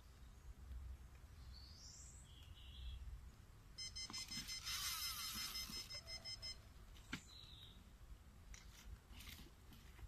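Electronic carp bite alarm sounding a fast, continuous run of beeps for nearly three seconds: a fish has picked up the bait and is taking line. A few short bird chirps come before and after it.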